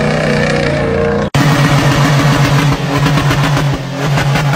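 Engine running at high revs as a white Toyota Land Cruiser ute spins its tyres on dirt, the pitch easing down slightly. About a second in, an abrupt cut gives way to a different engine running loudly and steadily with a fast, even pulsing in its exhaust note.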